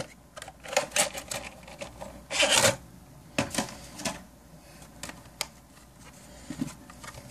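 Cardboard box and clear plastic clamshell tray being handled as a phone case is unpacked. Irregular clicks and taps, with a louder rustle of plastic about two and a half seconds in.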